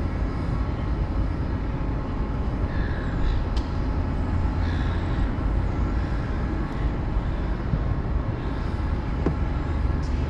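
Steady low outdoor rumble, like traffic noise or wind on the microphone, with no speech.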